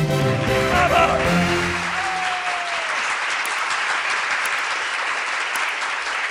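Applause at the end of a song. The music's last held notes fade out about two to three seconds in, and steady applause carries on after them.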